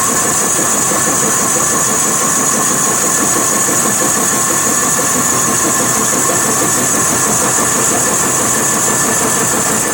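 CNC wood lathe running steadily while turning a large wooden workpiece, a continuous machine noise with several steady high-pitched whines over it.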